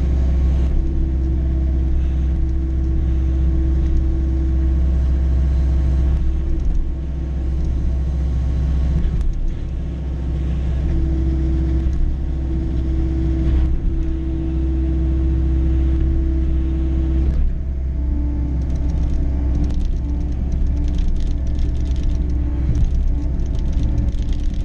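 John Deere 325G skid steer's diesel engine running steadily under load while driving a Paladin hydraulic sweeper, a low drone with a steady whine on top that shifts in pitch a few times.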